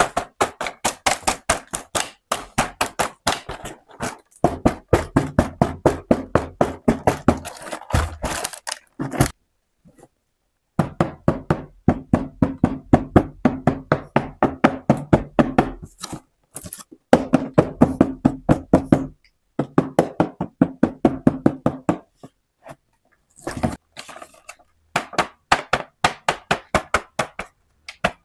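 Rapid small taps and clicks on miniature plastic toy pieces and their packaging being handled, coming in runs of several seconds at about four or five a second, with brief silent pauses between runs.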